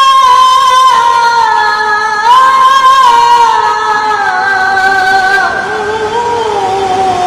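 Quranic recitation (tilawah) in a very high voice: long held, ornamented notes that slide and step gradually downward, with a fresh higher phrase starting about two seconds in.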